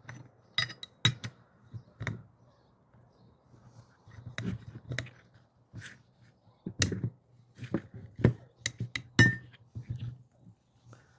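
Irregular metallic clicks, clinks and light knocks of small metal tool parts being handled and set down, over a faint steady low hum.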